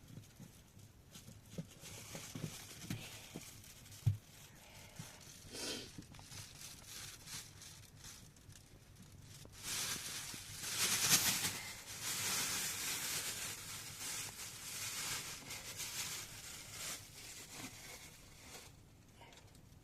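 Rustling, crinkling noise with a few knocks at first, growing loudest past the middle and then fading.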